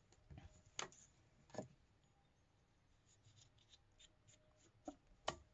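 Faint handling of paper and fabric on a craft cutting mat: light rustling with a few sharp little taps and clicks, two in the first couple of seconds and two close together near the end.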